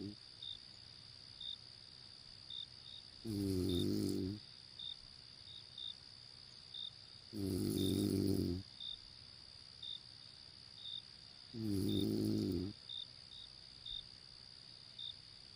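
A person snoring: three long snores in a slow, even rhythm, about four seconds apart and about a second each, with the end of another at the very start. Behind them, crickets chirp in short high notes.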